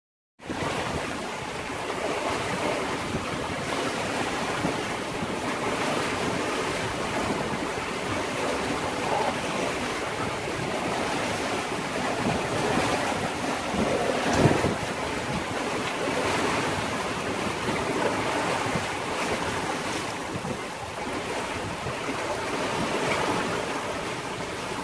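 Wind and the sea rushing past a sailing yacht under way at about 8 knots, with wind buffeting the microphone. The noise swells briefly about halfway through.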